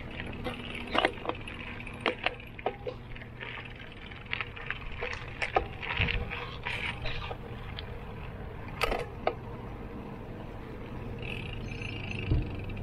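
A bicycle setting off: a run of sharp clicks and light rattles for most of the first nine seconds over a steady low rumble of road and wind noise, which carries on alone afterwards with one knock near the end.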